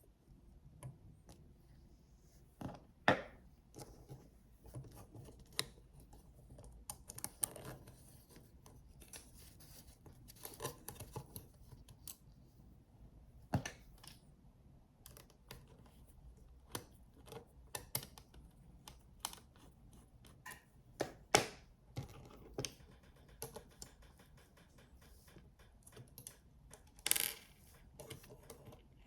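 Irregular small clicks, taps and scrapes of tiny screws being fitted to an NVMe SSD on a PCIe adapter card, with sharper knocks about three, thirteen and twenty-one seconds in and a short scrape near the end.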